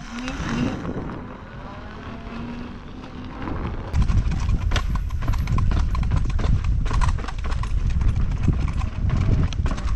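Electric unicycle ridden over a rough dirt trail: rapid knocks and rattles over the bumps with wind noise on the microphone, becoming much louder and denser about four seconds in.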